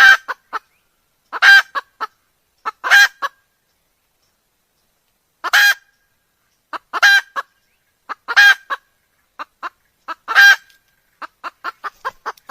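Red junglefowl (wild chicken) calling: about seven loud, short calls spaced a second or two apart, each with a few short clucks beside it, and a quick run of clucks near the end.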